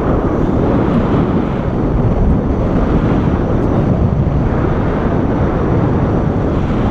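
Wind rushing over an action camera's microphone during a tandem paraglider flight: a loud, steady, rumbling rush with no engine or voices.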